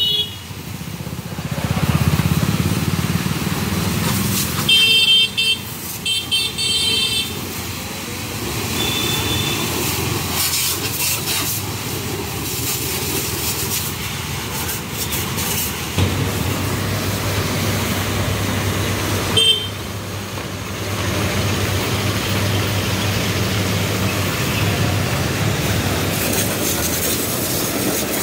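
Hose spray gun jetting water over a tractor with a steady rushing hiss. A few short vehicle horn toots come about five to seven seconds in. A steady low hum joins after about sixteen seconds.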